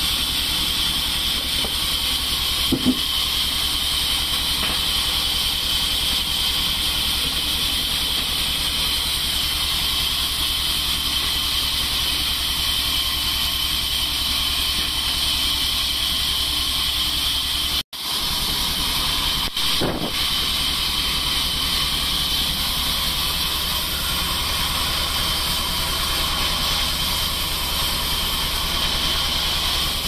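Band sawmill running steadily: a constant low hum with a high hiss over it. A couple of brief knocks, one near three seconds in and one around twenty, and the sound cuts out for an instant about eighteen seconds in.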